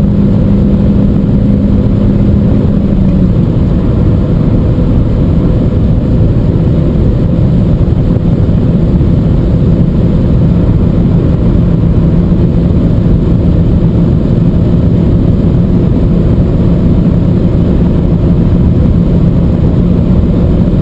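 Seat Leon 1.4 TSI turbocharged four-cylinder petrol engine running hard at high speed near the car's top speed, mixed with steady wind and road rumble. The engine note drops slightly about three seconds in, then holds steady.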